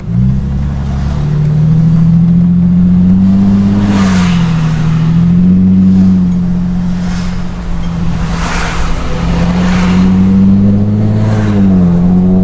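Mercedes-Benz SLK350's V6 running loud through its aftermarket exhaust while accelerating. The engine note climbs slowly, dips about four seconds in, holds steady, then climbs and dips again near the end.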